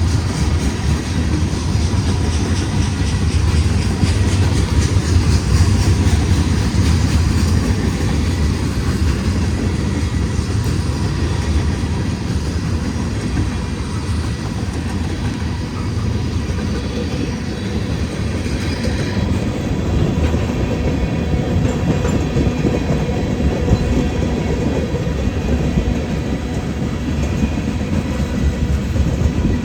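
Union Pacific freight train's cars rolling past in a steady rumble, with the clickety-clack of wheels over the rail joints.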